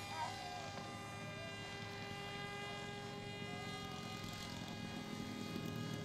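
RC motor glider's motor and propeller running steadily under power as it climbs out, a steady drone with many overtones.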